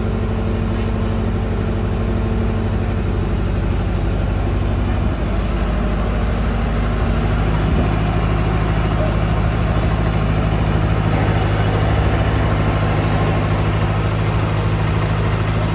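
Excavator engine running steadily; its note changes between about five and eight seconds in, then holds slightly louder.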